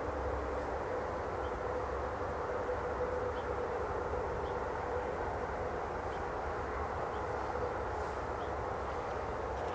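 A steady, even background rumble with a faint held hum through it, fading out near the end.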